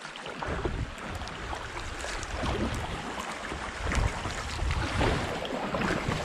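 Creek water splashing around a kayak, with wind buffeting the microphone and scattered small knocks and splashes.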